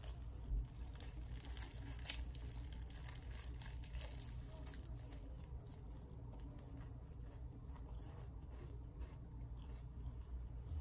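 Faint crinkling of plastic wrap and crunching of flaky baklava, bitten and chewed, as scattered small crackles over a low hum.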